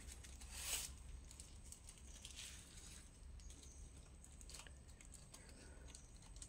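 Faint scattered rustles and light ticks, with a louder rustle about a second in, over a low steady hum.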